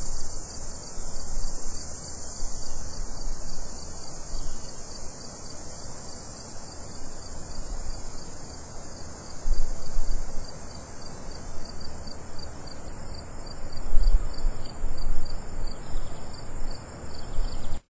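Steady outdoor insect chorus: a high continuous shrill buzz with an evenly pulsed chirping just below it. Low gusts of wind rumble on the microphone, loudest about ten and fourteen seconds in.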